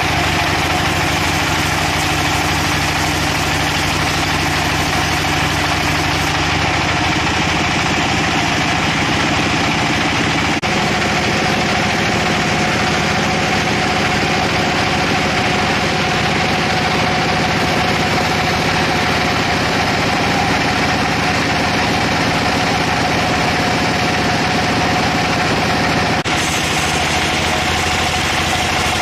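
Sawmill machinery running with a loud, steady engine drone. Its pitch pattern shifts abruptly about ten and a half seconds in and again about twenty-six seconds in.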